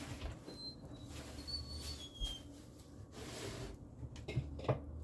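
Faint kitchen handling sounds as flour is fetched: soft rustling and scraping with a few brief high squeaks and a couple of light clicks near the end.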